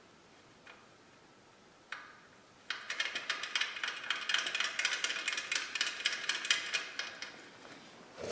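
Hand ratchet clicking rapidly as it runs a nut onto the ATV's rear shock bolt, after a couple of single clicks; the nut is snugged down but not yet tightened.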